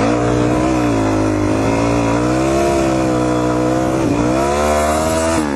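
Suzuki DR-Z400E's single-cylinder four-stroke engine running under throttle through mud, its pitch rising and falling with the throttle and dropping off near the end as the throttle closes.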